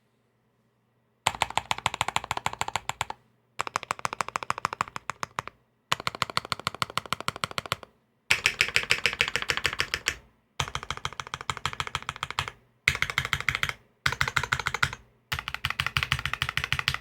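Fast typing on a Salamander custom mechanical keyboard with Sp-Star Meteor White switches, a carbon fiber plate and GMK Taro keycaps. The rapid key clacks come in bursts of one to two seconds with brief pauses between them, after about a second of silence.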